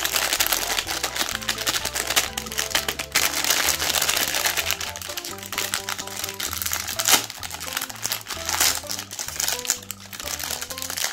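Crinkling and crackling of a metallised plastic Magnum ice cream wrapper as it is torn open and peeled back by hand, with one sharper crackle about seven seconds in. Background music with a melody plays throughout.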